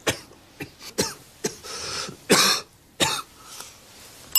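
A person coughing and clearing their throat in a fit of about half a dozen short coughs, with a drawn breath partway through.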